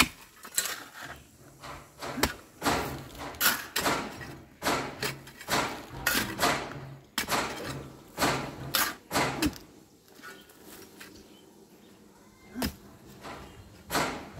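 Digging dry earth with hand tools: a shovel and hoe chopping and scraping into soil, with loads of dirt thrown out of the pit, in a run of strokes about one to two a second that stops about ten seconds in, followed by a few single knocks near the end.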